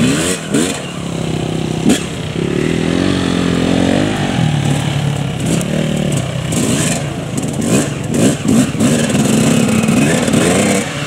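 Several off-road dirt bikes riding past, their engines revving up and down, overlapping. One engine climbs steadily in pitch about two to four seconds in.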